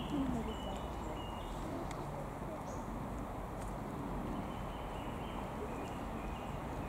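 Young wild boars grunting as they root and rest in sand, with faint, short, high bird chirps over a steady outdoor background hiss.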